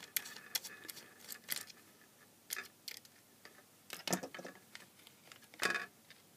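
Light clicks and taps of a small screwdriver and fingers handling a plastic mosquito-killer case and its circuit board. A few louder knocks come about two and a half, four and five and a half seconds in.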